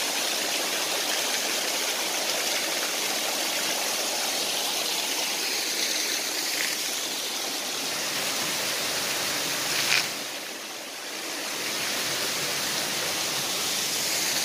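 Small waterfall splashing steadily as it falls over rock ledges. A single sharp click about ten seconds in, after which the water sound briefly drops before returning.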